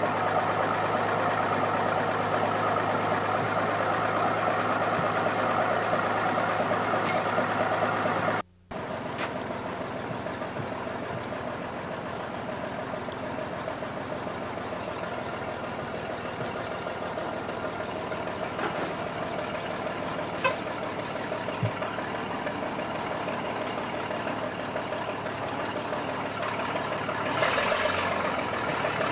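Truck engine idling steadily. After a brief dropout about eight seconds in, it runs on more quietly, with two short knocks a little past the middle, and grows louder near the end.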